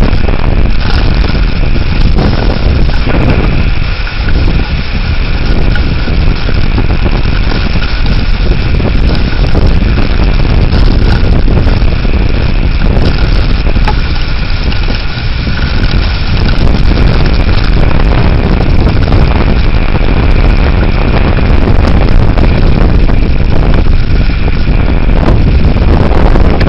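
Severe thunderstorm winds gusting hard across the microphone: a loud, rough rush of wind noise that eases briefly about four seconds in and again about midway.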